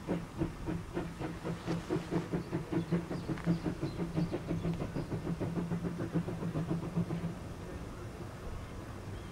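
Saxon VII K (class 99.73-76) narrow-gauge steam locomotive working slowly, its exhaust beating about five times a second with steam hissing from the open cylinder drain cocks. The beats stop about seven seconds in, leaving a low steady sound.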